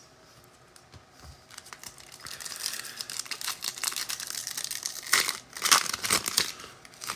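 A foil trading-card pack wrapper torn open and crinkled by hand, starting about a second and a half in, with a few louder rips near the end.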